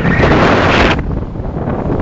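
Strong wind buffeting the microphone, over the wash of breaking surf. About a second in, the hiss drops away suddenly and a low rumble remains.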